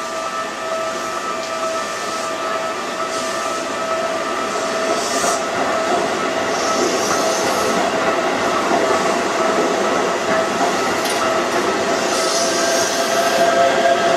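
Electric commuter train, a Hokuso 7300 series set, running over a level crossing with steadily growing running noise and a few short bursts of hiss. The crossing's warning bells ring steadily throughout.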